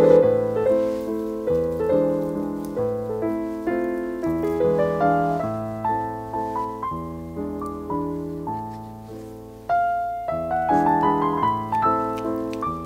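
Background piano music: a piano playing a steady run of notes, each struck and fading.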